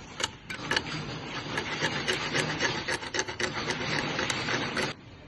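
Chain-link wire mesh weaving machine running, a dense scraping rattle of metal wire with many sharp clicks, which drops away abruptly about five seconds in.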